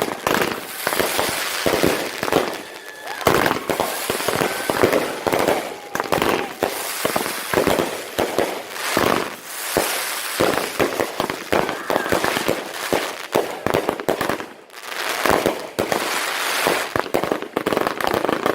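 Consumer fireworks going off together: a long, dense string of rapid crackling bangs and pops, with a brief lull near the end.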